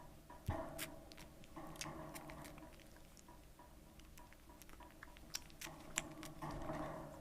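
Three-week-old toy poodle puppies nursing: quiet, irregular wet suckling and smacking clicks. The sharpest clicks come about half a second in and near six seconds. A faint, even ticking runs underneath at about three ticks a second.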